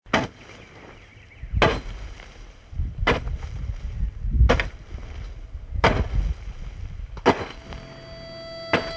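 Garden hoe chopping into dry, cloddy soil: seven sharp strikes in a steady rhythm, about one and a half seconds apart. Music fades in near the end.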